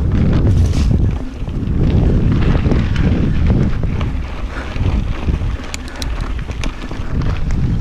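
Wind buffeting the microphone of a mountain bike rider's camera while riding, a heavy rumble that surges and dips. A run of sharp rattles and clicks from the bike comes near the end.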